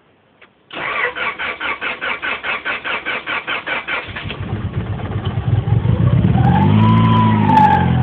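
Honda H22 2.2-litre four-cylinder engine cranked by the starter, about five pulses a second for some three seconds, then catching and running, its speed rising and settling. A high whine rising and falling comes in near the end, which the owner puts down to tensioner pulleys singing.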